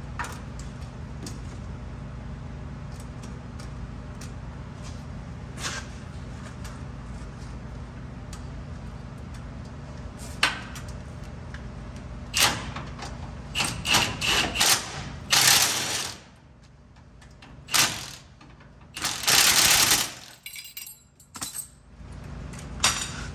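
Metal tools clinking and rattling as a 15 mm swivel socket on a long extension is worked onto an engine mount bolt. There is a steady low hum throughout. Sharp clicks and a few louder rasping bursts of about a second come in the second half.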